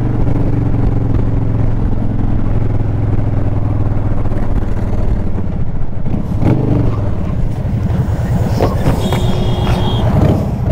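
Motorcycle engine running steadily in traffic, with wind noise on the microphone; about six seconds in the engine note swings as the throttle changes, then it carries on as a rougher, noisier rumble.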